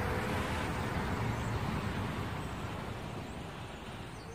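Intro sound effect under a title card: a steady rushing noise that slowly fades away.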